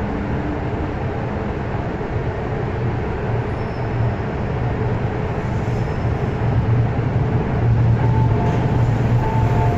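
MTR M-train electric multiple unit rolling into a subway station behind platform screen doors and slowing to a stop. Its steady low running hum grows louder near the end, and a couple of short high tones sound in the last two seconds.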